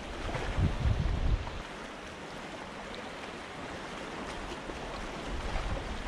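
Sea waves washing and splashing among the concrete tetrapods of a breakwater, with wind on the microphone; low rumbles of wash or wind swell up in the first second and a half and again near the end.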